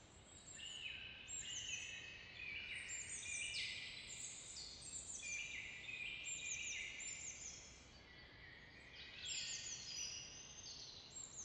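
Faint woodland birdsong: several small birds chirping and twittering in quick overlapping phrases, easing off briefly about two-thirds through, over a soft steady background hiss.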